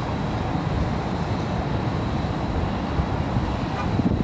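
Steady low rumble of jet aircraft engines at an airport, mixed with wind on the microphone, with a faint high whine held throughout.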